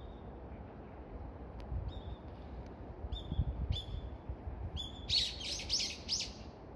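Small birds chirping: short high calls about once a second, then a quick run of chirps near the end. Low gusts of wind rumble on the microphone underneath.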